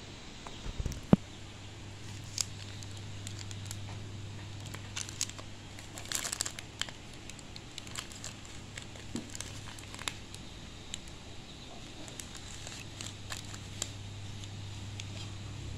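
Plastic bags crinkling and rustling as they are handled and set down on a plate, with a sharp knock about a second in and a denser patch of crinkling around the middle. A steady low hum runs underneath.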